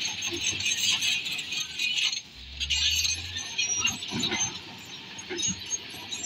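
Continuous metallic clinking and rattling from a working bulldozer, with a brief low hum about two and a half seconds in.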